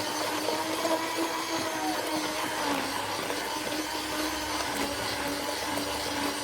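Electric hand mixer running steadily at a constant pitch, its beaters whipping a liquid cake batter of eggs, sugar, oil and yogurt in a bowl.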